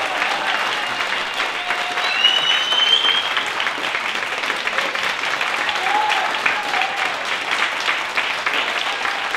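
Audience applauding, with a few voices calling out and a high, slightly rising whistle about two seconds in.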